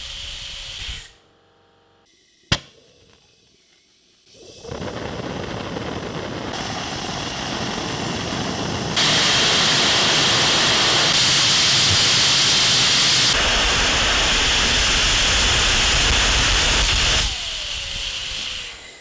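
A compressed-air jet hissing, cut off about a second in, then a single sharp click. From about four seconds in a small homemade annular combustion chamber burning butane with compressed air runs with a loud steady rushing, stepping louder about halfway through and falling back to a hiss near the end.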